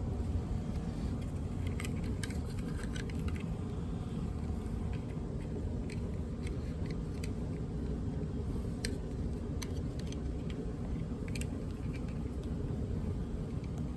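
Scattered light clicks and rattles of the alarm's wire leads and small parts being handled, over a steady low rumble.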